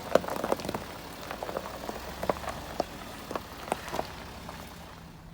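Scattered sharp clicks and taps, a dozen or so at irregular spacing, over a low steady rumble, heard in the cabin of a Land Rover on a rough off-road track.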